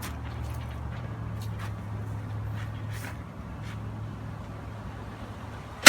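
A low, steady engine hum that eases off a little in the last couple of seconds, with a few faint clicks and taps over it.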